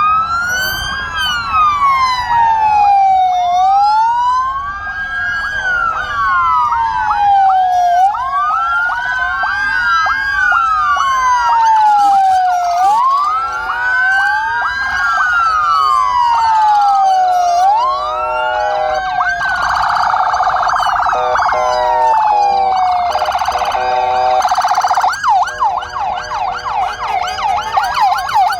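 Many police and gendarmerie convoy sirens sounding together, several wails rising and falling every few seconds out of step with one another. In the last few seconds some switch to a fast warbling yelp.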